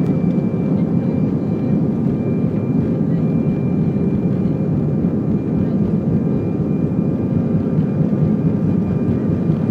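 Airbus A320's jet engines heard from inside the passenger cabin as the aircraft rolls along the runway: a steady deep rumble with a faint, level high whine.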